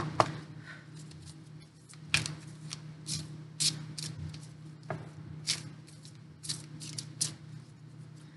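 A deck of large, slippery Starman Tarot cards being shuffled by hand: an irregular string of short card snaps as the cards slide against one another.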